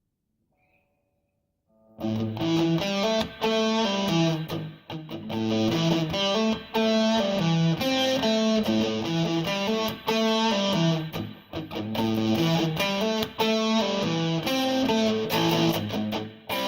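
Electric guitar played through a booster-overdrive pedal, picking a repeated riff of low notes with a few short breaks, starting about two seconds in after near silence. Captured on a cell phone's microphone.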